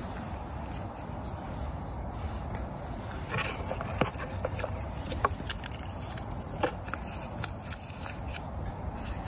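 Cardboard burning in a stainless steel biomass camping stove: scattered sharp crackles and pops, loudest about four to seven seconds in, over a steady low rush.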